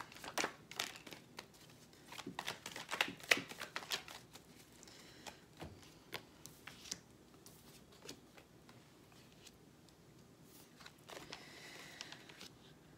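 A deck of tarot cards being shuffled by hand: quick, soft card clicks and flicks for the first few seconds, thinning out to occasional ones, with a soft brushing slide near the end.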